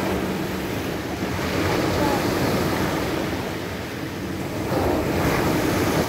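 Surf breaking on a pebble beach, the waves rushing in and washing back. The wash swells about two seconds in and again near the end.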